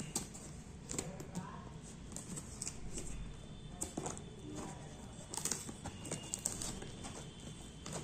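Hands handling and opening a taped cardboard box: scattered light taps, scrapes and rustles of fingers on cardboard and packing tape.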